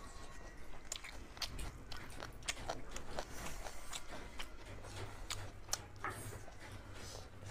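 Close-miked eating sounds from a mukbang: chewing with irregular crisp, crunchy bites, about two or three a second.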